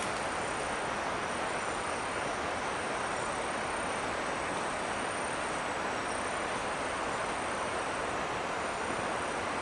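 Steady, even rainforest background noise with a thin, constant high-pitched insect tone above it.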